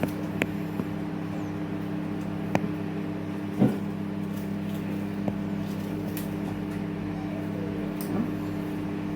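Microwave oven running with a steady hum while it cooks broccoli and squash, with a few light kitchen knocks and clicks over it, the loudest about three and a half seconds in.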